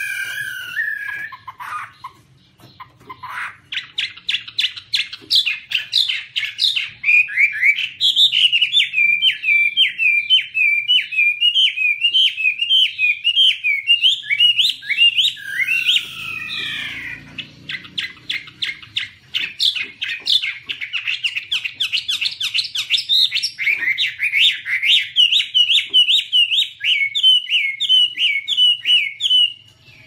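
Chinese hwamei (Garrulax canorus) singing in long runs of fast repeated notes. A falling slur and a brief pause come about halfway through, then another long run that stops shortly before the end.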